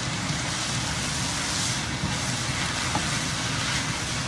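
Yellow noodles frying in a hot pan while being tossed with wooden spatulas: a steady sizzling hiss.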